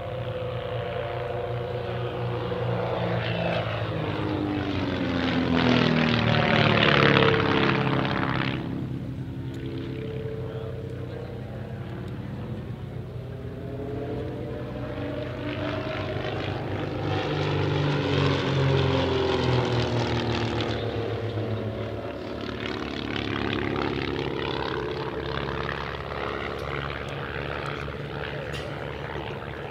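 Pair of Van's RV-8 aerobatic light aircraft flying in formation, their piston engines and propellers droning and sliding up and down in pitch as they manoeuvre and pass. The sound swells to its loudest about seven seconds in, drops away suddenly just before nine seconds, then swells again around eighteen to twenty seconds.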